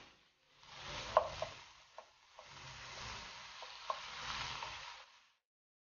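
Wooden spatula stirring and scraping ground pork, shrimp and onion around a nonstick wok as the mixture sizzles, with a few light taps of the spatula against the pan. The mixture is being sautéed until dry. The stirring stops about five seconds in.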